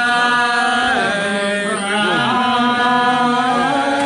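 A man's voice chanting a Baptist sermon in long held notes, the sung preaching style, with the pitch stepping from one sustained tone to the next.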